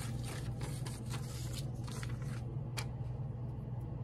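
Paper rustling and crinkling as clippings and pictures are handled, a scatter of short faint rustles and taps over a steady low hum.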